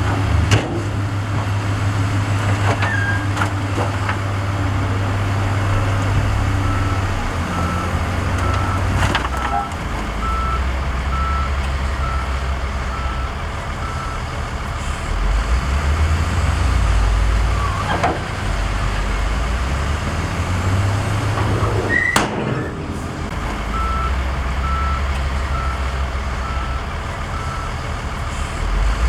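Heavy diesel earthmoving machinery working, its engine running low and changing pitch as it works. A reversing alarm beeps steadily in two stretches, and a few sharp metal clanks are heard.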